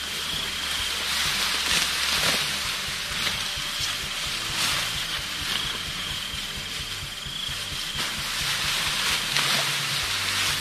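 Dry rice stalks rustling and swishing as they are gathered and cut by hand during the rice harvest, with a crisp swish every second or two.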